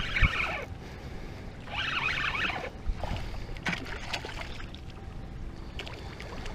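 A spinning reel cranked in two short bursts as a hooked snook is reeled in, then the snook splashing and thrashing at the water's surface.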